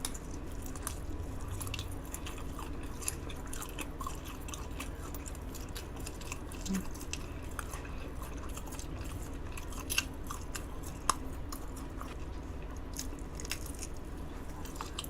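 A person chewing chewy food close to the microphone, with soft, wet mouth clicks throughout and a couple of slightly louder clicks about two-thirds of the way in.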